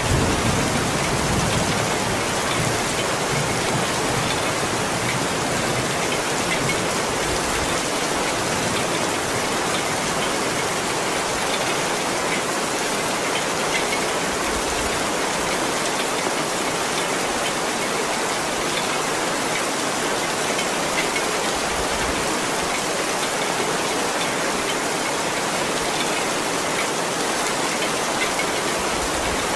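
Heavy rain falling steadily on stone paving and leaves, a dense, even hiss of drops. A low rumble of thunder dies away in the first two seconds.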